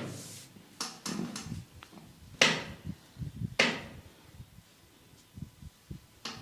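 Sharp hand slaps and knocks on skin during a head massage, irregular, with two loud strikes about two and a half and three and a half seconds in among softer pats.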